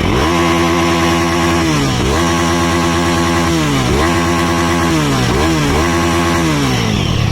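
Jawa 42 2.1 motorcycle's single-cylinder engine revved hard through its twin silencers. It is held at high revs for a second or so at a time, dips briefly several times, and eases down near the end.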